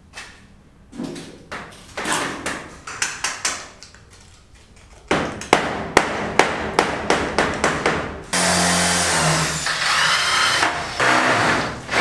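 Aluminium frame parts clattering, then a quick series of sharp knocks at about three or four a second. A corded electric drill follows, running steadily for about two seconds and starting again near the end.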